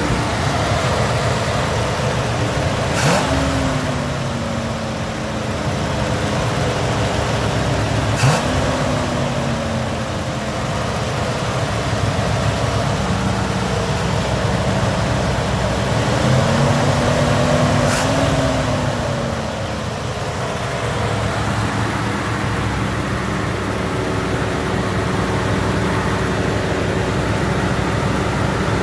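1964 Buick 401 nailhead V8 running at idle, its revs rising and falling three times, the last time longer and slower; a sharp click comes with each rise.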